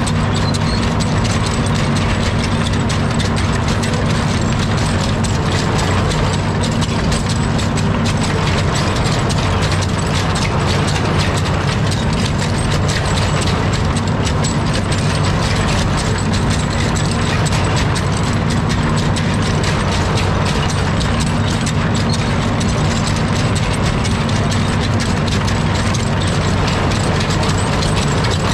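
Amphibious excavator's diesel engine running steadily under a dense, fast, even clatter from its pontoon tracks as the machine travels through river water.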